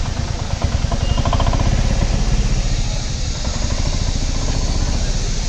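Nissan Magnite's 1.0-litre three-cylinder engine running as the car pulls away slowly, a steady low rumble.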